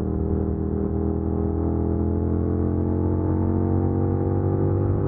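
Suzuki SV650X's V-twin engine pulling hard at expressway speed, its pitch rising steadily as the bike accelerates.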